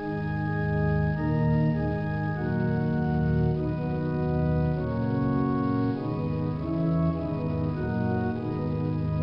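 Slow organ music of sustained chords, changing about once a second.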